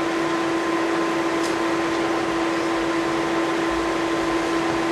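Steady room tone in a small room: a constant hum over an even hiss, with no speech.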